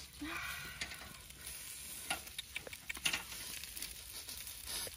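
Meat and vegetable skewers sizzling over a charcoal grill, a steady hiss with scattered sharp crackles and clicks.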